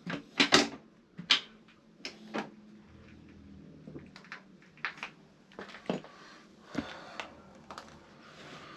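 Metal hand tools being handled: irregular sharp clicks and clinks, loudest in the first second and a half, then lighter knocks every second or so.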